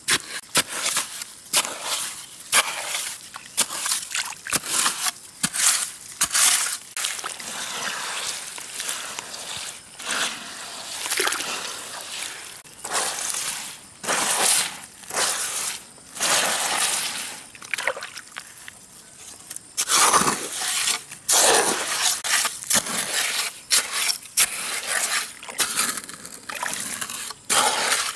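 Water splashing and sloshing in irregular bursts, as if being stirred or waded through by hand.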